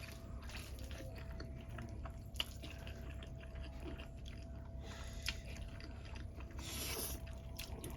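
Close-miked eating sounds: soft chewing with scattered wet mouth clicks, and brief hissy bursts about five seconds in and near the end.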